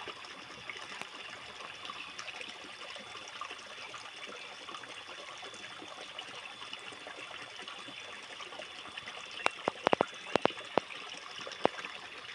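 Water trickling steadily, with a quick run of sharp clicks about three-quarters of the way through.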